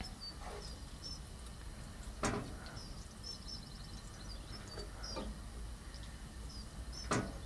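A wooden spatula knocks twice against a frying pan while stirring, with small birds chirping and twittering throughout.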